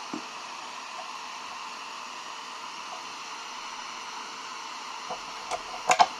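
Electric heat gun running steadily, blowing hot air on epoxy glue to soften it so the glued stone blocks come loose. A few sharp knocks near the end.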